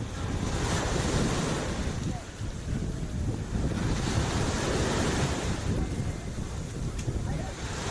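Sea waves washing against the shore, with wind buffeting the microphone as a low rumble throughout. The wash swells about a second in and again around four seconds in, and there is a single short click near the end.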